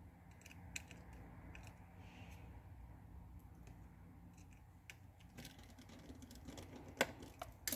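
Faint small clicks and taps of an iPhone 6 and its parts being handled during reassembly, with two sharper clicks near the end.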